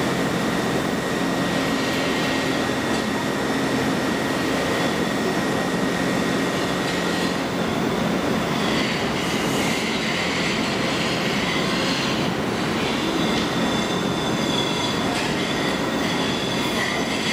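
R142 subway train rolling slowly into a station, with a steady rumble of wheels on rail and high squealing tones that grow stronger in the second half.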